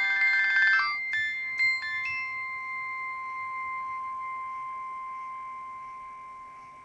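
Nokia 6820 ringtone playing from the phone's speaker: a quick run of electronic notes in the first second, a few single notes, then two long held tones that slowly fade out as the tune ends.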